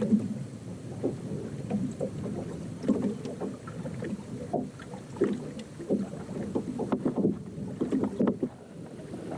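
Small waves slapping irregularly against the hull of a bass boat, a quick run of short splashy knocks over steady wind-and-water noise.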